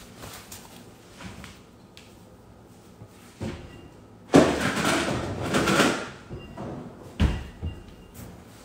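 Kitchen cupboard door knocking and ceramic plates clattering while a large plate is taken out, with a longer spell of rattling near the middle and a sharp knock near the end.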